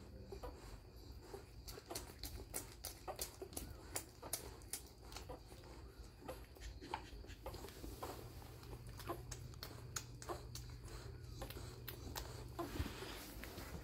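Eight-day-old puppies suckling at their mother: a fast, irregular run of small wet clicks and smacks, with a low steady hum underneath.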